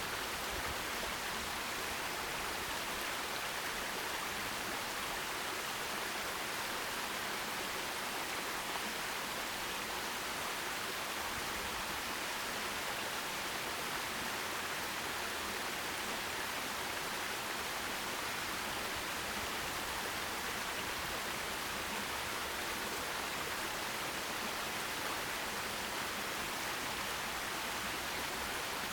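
Forest stream flowing: a steady, even rush of water that does not change.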